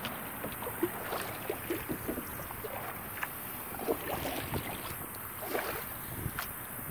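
Double kayak being paddled: the paddle blades dip and pull through the water, making small irregular splashes and drips.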